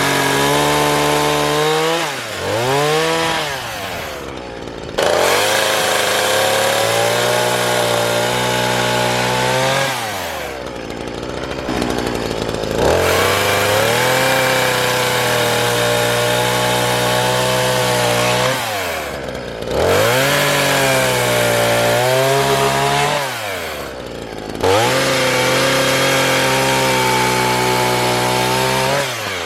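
A small engine running at high revs, its pitch sagging and climbing back several times.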